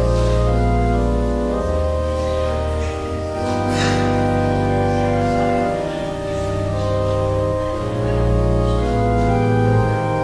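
Church organ playing slow sustained chords over deep pedal bass notes, the chords changing every second or two.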